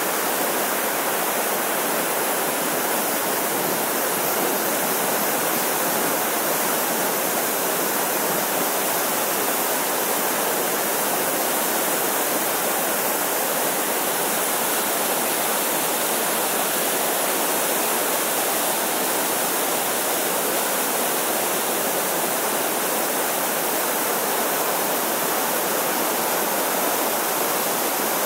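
Waterfall running high, brown whitewater pouring and churning over rocks in a steady, unbroken rush.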